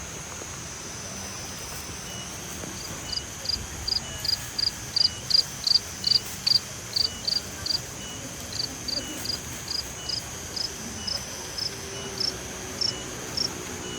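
Insects: a cricket chirping in an even series of short, high chirps, about three a second, starting a few seconds in and loudest in the middle, over a continuous high-pitched insect drone.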